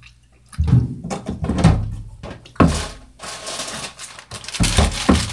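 A run of knocks, thumps and rustles from things being handled on a kitchen counter close to the microphone, with the loudest knocks about two and a half seconds in and again near the end.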